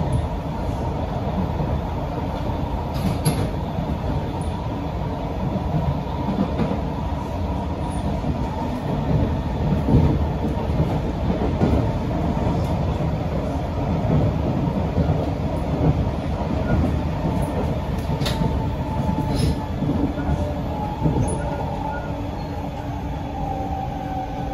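A C151B electric metro train heard from inside a passenger car while running: a steady rumble of wheels on rail, with a few sharp clicks and a faint falling whine near the end.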